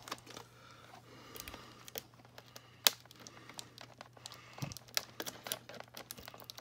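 Small red-handled cutters snipping the plastic ties that hold a doll's hair to its packaging: scattered sharp clicks, the loudest about three seconds in, amid the crinkle of the clear plastic box being handled.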